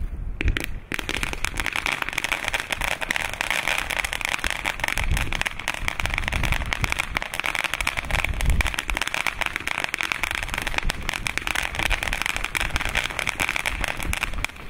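Lesli Roughneck ground fountain firework burning: a dense, continuous crackling hiss of spraying sparks that starts about a second in and drops away sharply at the very end.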